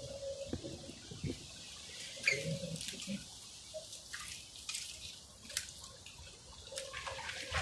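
Wet mud and water squelching and dripping as a flooded mud crab burrow is dug out by hand, with about half a dozen scattered sharp splashes and clicks.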